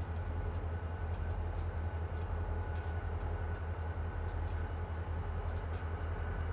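Norfolk Southern diesel locomotive idling: a steady low engine throb with a steady high whine above it.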